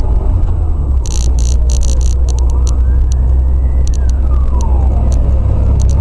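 Dashcam audio from a moving car: a loud, steady low rumble of driving, with a faint siren slowly wailing up and then down in the background. A quick run of sharp clicks comes about a second in.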